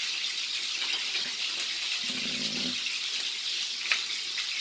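Steady sizzling hiss of sprat fish frying in hot oil, with a sharp knife tap on a wooden cutting board a little before the end.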